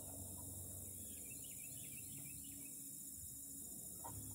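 Faint outdoor background with a steady high hiss, and a short run of faint bird chirps about a second in.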